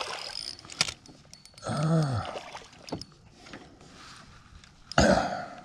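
A hooked bass splashing at the surface as it is reeled in to the boat, with a sharp click about a second in, a short voiced exclamation about two seconds in, and a louder burst of splashing near the end.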